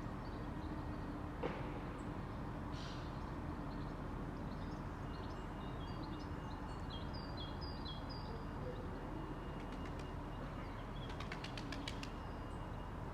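Outdoor ambience: a steady low rumble of background noise, with a small bird chirping in short, quick notes about five to nine seconds in and again near the end, and a brief click about a second and a half in.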